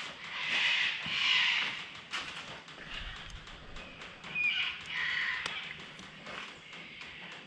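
Hand-tool work on a small nut in a race car's dash, with vice grips and a screwdriver: two bursts of scraping, one early and one about halfway through, with scattered light metal clicks and taps.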